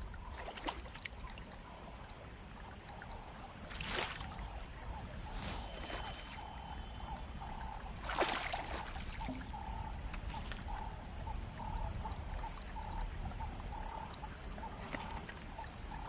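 Pond-edge ambience: a steady high insect drone, with three water swishes or splashes about four, five and a half and eight seconds in. From about halfway, a short call repeats roughly twice a second.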